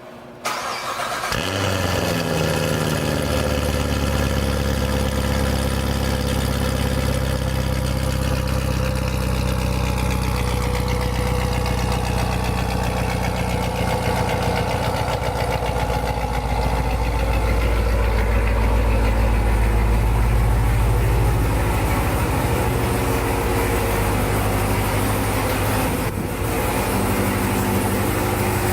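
Corvette Z06's supercharged 6.2-litre V8 starting about half a second in, then idling steadily. A high whine falls slowly in pitch over several seconds as the idle settles.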